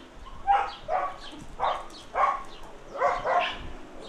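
A dog barking: about six short barks in quick succession.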